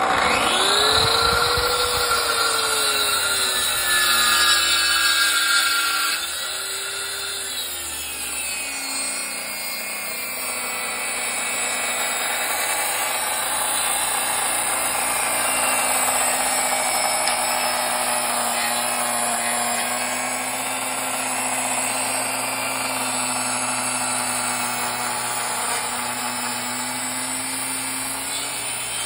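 Bosch track saw cutting a 45-degree bevel through thick, hard Douglas fir. The motor whine spins up at the start, then sags in pitch within a couple of seconds and stays low as the blade labours through the wood. The owner takes this for the saw working at the limit of what it is happy with, made worse by a blade slightly dulled from cutting through small screws.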